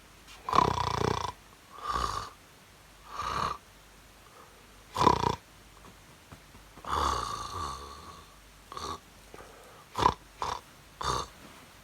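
Snoring: a series of separate snores, one every one and a half seconds or so at first, then shorter and closer together near the end.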